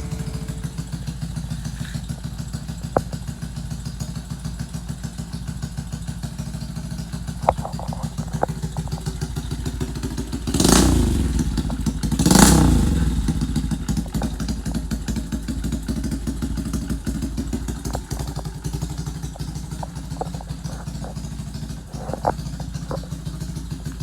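Honda Wave 100 four-stroke single-cylinder engine in a rebuilt Yamaha Y100 motorcycle, idling with an even pulse. The throttle is blipped briefly twice near the middle, with a few light ticks and clatters scattered through.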